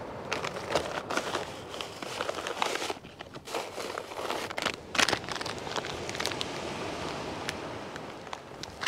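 Hands rummaging in a bait pot for a sandeel: plastic bait packaging crinkling and rustling, with scattered sharp clicks and a few louder knocks.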